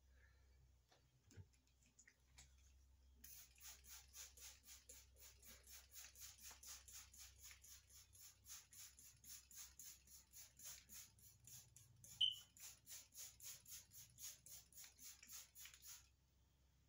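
Hand-held trigger spray bottle being squeezed over and over, a short hiss about three to four times a second for some thirteen seconds, misting the wet paint on the canvas so that it runs down in drips. One brief louder squeak comes about twelve seconds in.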